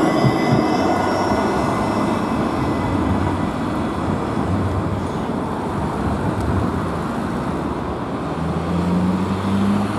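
A Škoda 26T low-floor tram passing close, with a high whine that fades within the first two seconds. After that comes steady street traffic noise, and a low hum rises near the end.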